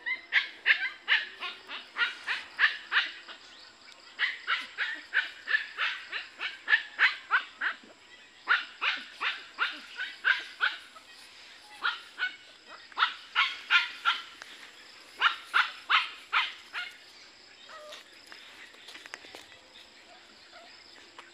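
A dog barking in quick runs of short, high-pitched yaps, about three or four a second, in five bursts with short pauses between them.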